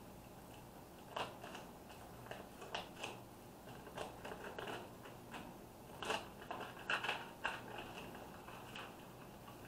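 Clear plastic transfer sheet and vinyl stencil crinkling and crackling as gloved hands handle and press them onto a tumbler cup. The crackles come irregularly and are loudest between about six and seven and a half seconds in.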